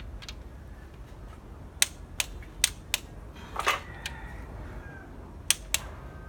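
Sharp metallic clicks from a click-type torque wrench and socket as bolts on the camshaft assembly of a 1992 Honda Accord engine are tightened in sequence to the 22 setting. There are about half a dozen separate clicks with a short rattle of metal near the middle.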